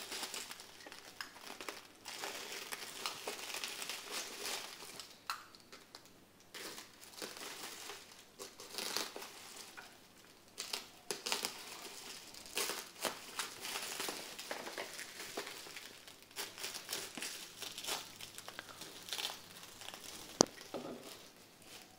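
Clear plastic wrapping being slit with a utility knife and peeled off a cardboard box, crinkling and crackling unevenly. Near the end there is one sharp click.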